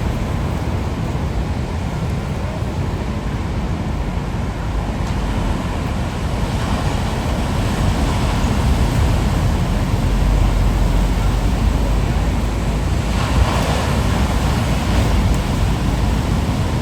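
Ocean surf breaking and washing along a rocky shore in a continuous rush that swells louder partway through. A brighter wash comes about three seconds before the end. A low rumble of wind buffets the microphone underneath.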